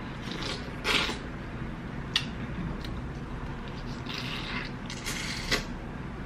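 Close-miked eating sounds from biting and chewing a large sauced shrimp: wet mouth smacks and squelches, with a sharp click about two seconds in.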